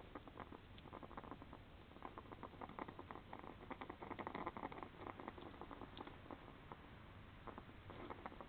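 European hedgehog foraging on brick paving: a faint, dense run of small clicks and scratches, busiest around the middle.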